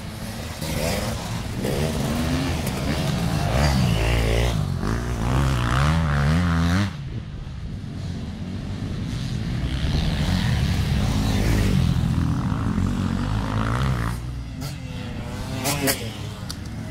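Off-road racing motorcycles revving hard on a dirt track, engine pitch rising and falling with throttle and gear changes. The nearest bike is loud for the first seven seconds, then drops away suddenly; more bikes rev again further off, and a couple of sharp knocks come near the end.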